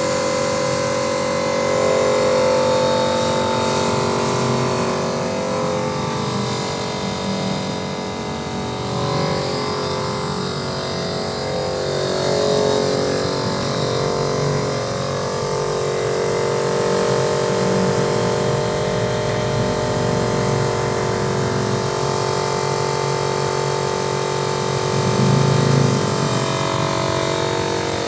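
Motorized rolling door running: the electric door motor hums steadily for the whole stretch.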